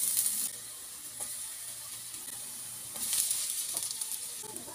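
Chopped onion sizzling in hot oil in a stainless steel frying pan, a steady hiss that is louder for the first half second and swells again about three seconds in as diced ham goes into the pan.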